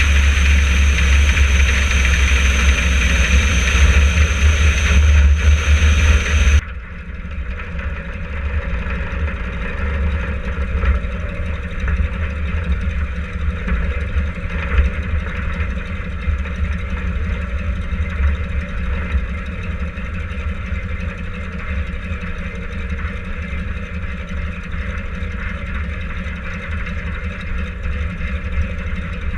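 Yak-52's nine-cylinder radial engine running at taxi power with rushing air, then cutting abruptly, about six and a half seconds in, to a quieter, steady low idle as the aircraft taxis.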